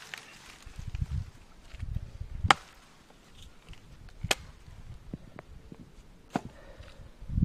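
Chris Caine survival tool's steel blade chopping into a fallen tree trunk: three sharp chops about two seconds apart, the first the loudest.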